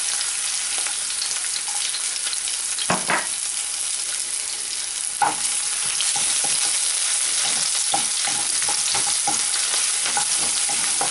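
Chopped garlic sizzling steadily in hot olive oil in a nonstick pan, stirred with a wooden spoon that scrapes and taps against the pan, with two sharper knocks in the first half.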